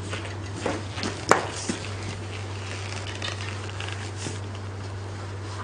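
A steady low hum with a few soft knocks and one sharp click in the first two seconds.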